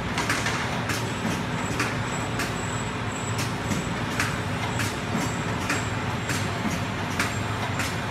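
Pyramid tea bag packing machine running: a steady mechanical hum with regular sharp clicks from its moving parts, roughly one and a half a second, and a faint high whine.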